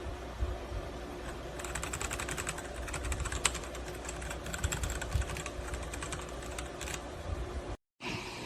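Typing on a Royal Kludge RK R87 mechanical keyboard: a fast, steady run of keystroke clicks that breaks off abruptly near the end.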